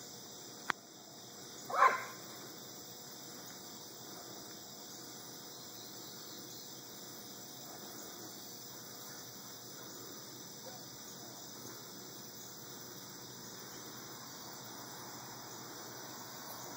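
Crickets chirping steadily, with a sharp click just under a second in and a single short, loud bark about two seconds in.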